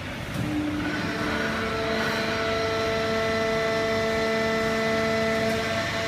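Fully automatic horizontal hydraulic cardboard baler running: a steady machine hum with a whine of several steady tones that grows a little louder about a second in.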